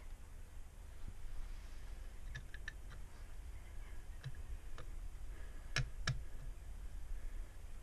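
Light plastic and glass clicks as a hand handles the airlock and stopper on a small glass demijohn. There is a quick run of four clicks a couple of seconds in, and two sharper ones about six seconds in.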